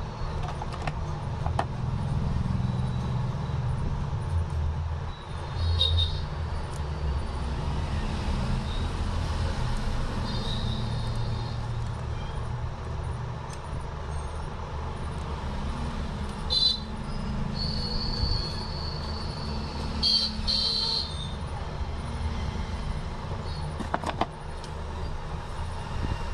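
Steady low background rumble with several short, high-pitched tones scattered through it, and a single sharp click near the end.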